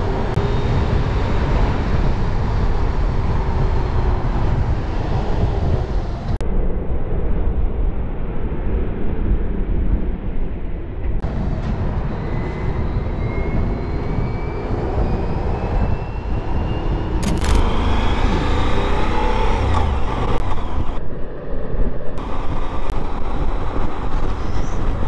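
Motorcycle riding heard from a camera on the bike: steady engine and rushing road and wind noise, with a whine that rises in pitch for several seconds near the middle as the bike speeds up. The sound changes abruptly several times where clips are cut together.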